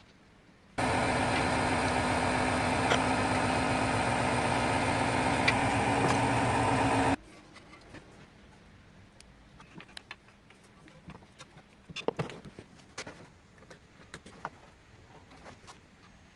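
A 2008 Mini Cooper S's engine running steadily, cutting in abruptly about a second in and cutting off abruptly about seven seconds in. Faint scattered clicks and knocks follow.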